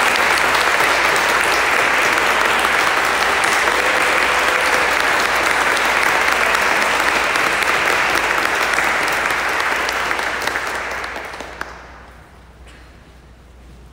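Applause from a sparse audience seated in pews, steady and then dying away about eleven to twelve seconds in.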